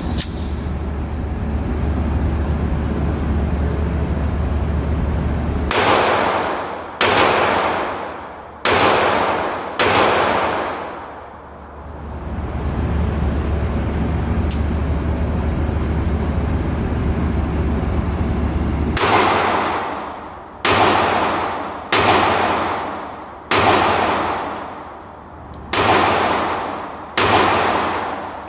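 A SIG P365 9mm pistol fires ten shots of 115-grain Aguila target ammunition: four shots spaced a little over a second apart, a pause, then six more. Each shot is followed by about a second of ringing echo, and a steady low hum fills the pauses between strings.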